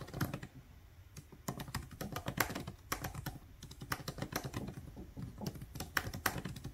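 Typing on a MacBook Pro laptop keyboard: an irregular stream of light key clicks, sparse for the first second or so, then quick and steady.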